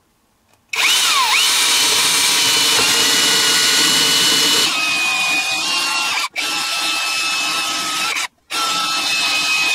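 Cordless drill driving a 19 mm hole saw through the caravan floor: the motor spins up under a second in and cuts steadily with a high whine, easing off twice briefly in the second half as the saw bites through.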